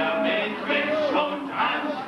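Live band music with a man singing over it.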